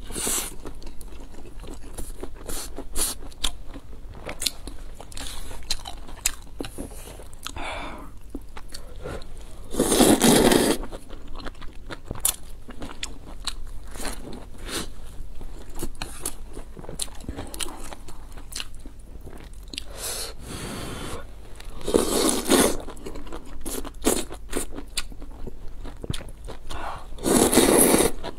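Close-miked eating of a soft steamed bun and a stew with glass noodles: steady chewing and wet mouth clicks. There are three louder, longer slurps, one about ten seconds in, one a little past twenty seconds and the last near the end, which is a slurp of glass noodles.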